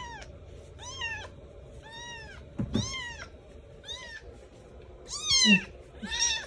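Very young kitten mewing over and over, thin high-pitched cries about once a second, each rising and then falling in pitch.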